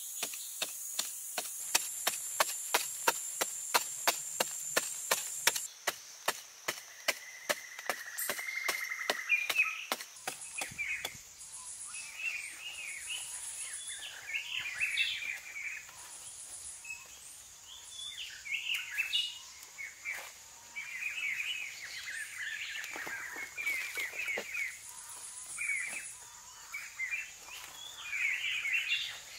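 A digging stick driven repeatedly into hard earth, about two strokes a second for the first ten seconds. Then birds calling against a steady high insect drone, with loose soil being scooped by hand.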